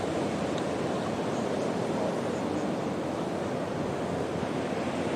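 Steady outdoor rushing noise at an even level, with no distinct events.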